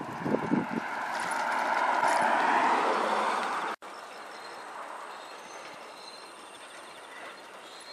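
A few short thuds, then the noise of a passing vehicle swelling up and cutting off abruptly about halfway through, followed by quieter steady background noise.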